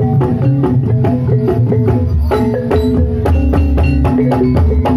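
Live ebeg (kuda lumping) accompaniment music: an ensemble of struck, pitched percussion and drums playing a quick, even rhythm of ringing notes over a steady low bass.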